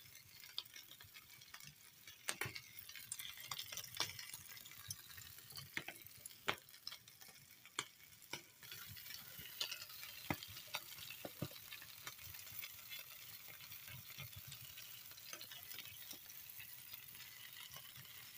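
Meat sizzling over a wood fire, a steady frying hiss with scattered sharp crackles and pops from the fire. About halfway through the hiss gets louder.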